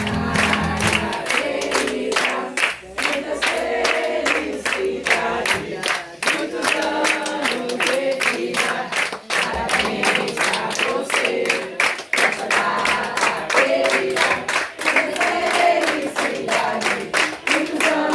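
A group of people singing a birthday song together while clapping along in a steady beat, about two to three claps a second.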